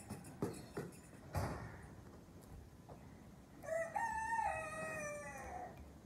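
A rooster crowing once, a drawn-out call of about two seconds that steps in pitch and falls away at the end, starting a little past halfway. A few short knocks come in the first second and a half.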